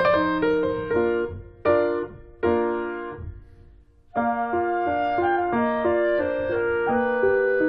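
Background piano music. A couple of struck chords ring and die away to a brief near-silence, then the piano picks up again about four seconds in with a steady run of notes.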